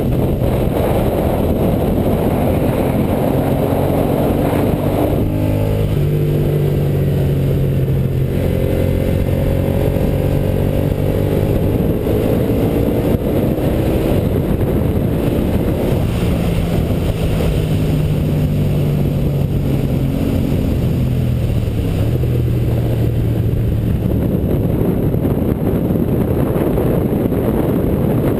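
Aprilia Caponord's V-twin engine under way at speed, heard from a camera mounted on the bike. Its revs drop off about five seconds in and again around twenty seconds, then climb back up as the bike accelerates, over a constant rush of wind.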